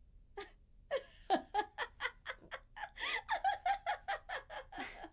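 Women laughing together: a long run of quick, short laughs, about five a second.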